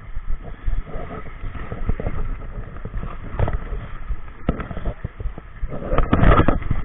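Small waves washing and splashing among shoreline boulders, with irregular knocks and crackling pops of handling and wind on the microphone, loudest near the end.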